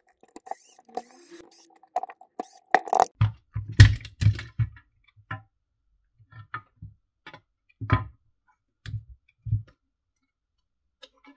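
Handling noises from the plastic charger housing and its circuit board being lifted apart and moved around: scattered clicks and light knocks, with several dull thumps.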